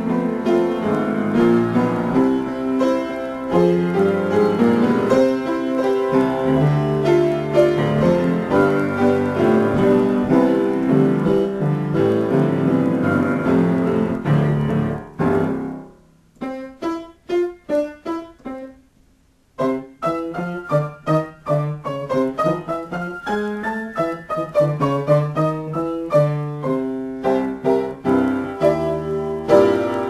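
Solo piano improvisation. Dense sustained chords fill the first half, then the playing thins to short detached notes with a brief pause, before quick running figures that climb and fall and a return to fuller chords near the end.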